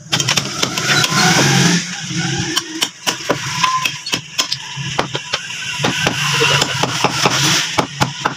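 Meat cleavers chopping meat and bone on wooden chopping blocks: many sharp, irregular knocks. Under them a motor vehicle's engine runs close by and swells louder twice, near the start and again in the second half.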